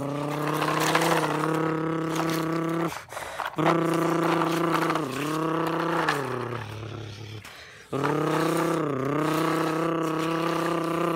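A person imitating a truck engine with their voice: three long droning vroom sounds with short breaks between them, the pitch dipping and rising again within each.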